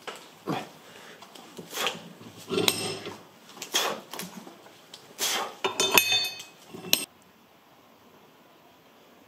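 Metal tools and parts clinking and knocking against each other on a workbench, a handful of separate sharp hits, some of them ringing briefly; the clatter stops abruptly about seven seconds in, leaving faint room noise.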